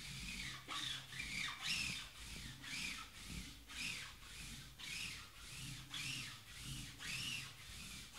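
Rhythmic squeaky rubbing, about two strokes a second, each stroke with a short squeal that bends up and down, as hands work cardboard boxes across the table.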